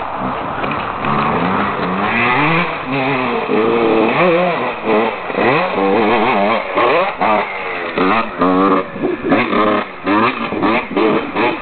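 2009 Husqvarna WR 125 two-stroke single-cylinder engine being warmed up. It runs fairly steadily for the first few seconds, then is revved again and again in quick blips, the revs rising and falling, with the blips coming closer together in the second half.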